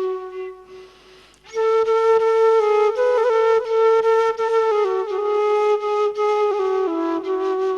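Background music: a slow solo wind-instrument melody of held notes stepping between pitches, breaking off briefly about a second in before resuming.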